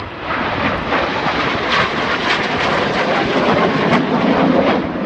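BAE Hawk T1 jets passing in display formation: a loud jet-engine roar that swells to its peak about four seconds in, then eases.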